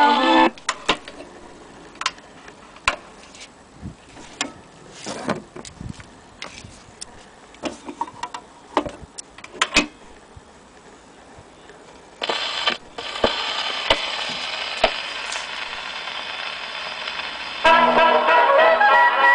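An HMV Model 102 portable wind-up gramophone being handled: scattered clicks and knocks from its chrome tone arm and soundbox as the record is changed. Then the needle sets down on a spinning 78 and runs with a steady surface hiss, and the record's music starts playing through the soundbox near the end.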